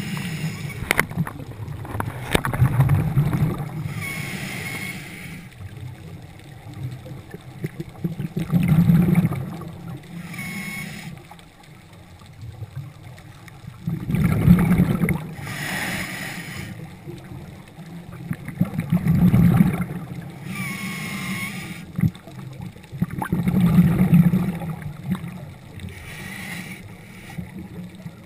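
Scuba diver breathing through a regulator underwater: about five slow breaths, each a bubbling, rumbling exhale followed by a hissing inhale with a slight whistle.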